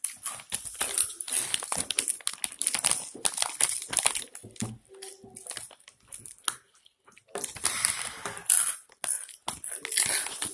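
A plastic snack bag crinkling as hands rummage in it, mixed with crunchy chips being bitten and chewed, in irregular rustles and crunches.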